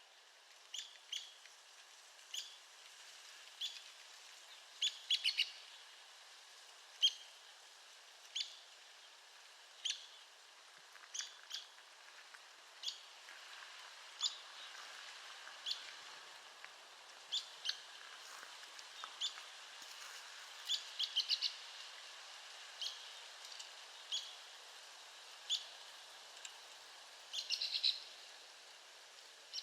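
Arizona woodpecker giving short, sharp, high call notes, about one a second, with quick runs of several notes about five seconds in, around twenty-one seconds and near the end. A faint steady hiss lies underneath.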